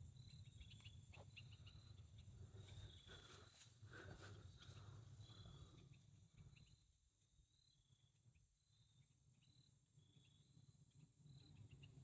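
Faint crickets chirping outdoors, short high chirps repeating every half second or so, over a low steady rumble that fades about halfway through.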